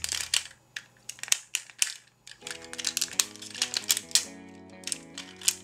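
Rapid clicks and snaps of plastic parts on a transforming police-car robot toy as its pieces are folded and turned by hand, over background music.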